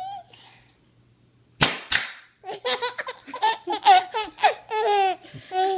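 A nail gun fires, two sharp cracks close together, and an infant answers with a run of giggling laughter.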